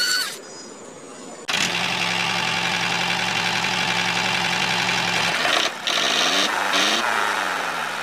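A motor starts abruptly about a second and a half in and runs steadily. Its pitch wavers up and down near the end.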